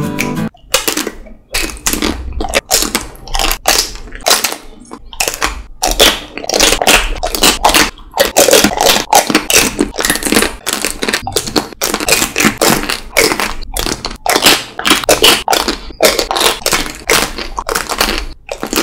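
Close-up biting and crunching into the hard chocolate shells of Magnum Double Raspberry ice cream bars: a quick, irregular run of sharp cracks, several a second, with chewing between bites.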